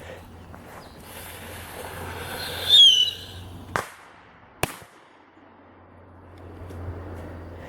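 Firecracker going off: a hiss builds to a loud, short, falling whistle, then two sharp bangs about a second apart.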